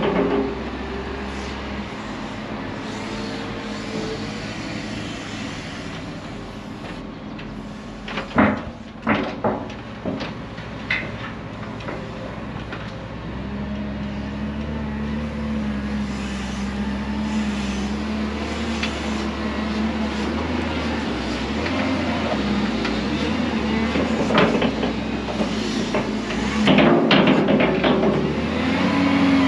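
Case 721F wheel loader's diesel engine running under load while packing chopped rye silage, its pitch rising about halfway through. Sharp clanks and knocks come in a cluster about a third of the way in and again near the end.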